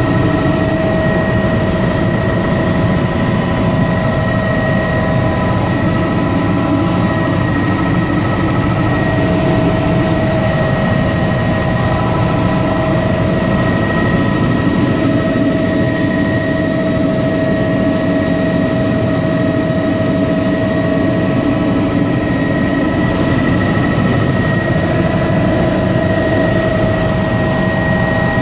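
Helicopter in flight, heard from on board: loud, steady engine and rotor noise with an unchanging high-pitched whine over it.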